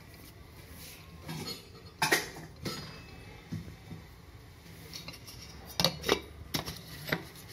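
Clinks and knocks of a steel mixer-grinder jar and its lid being handled and fitted in place: a few separate sharp knocks, bunched together near the end.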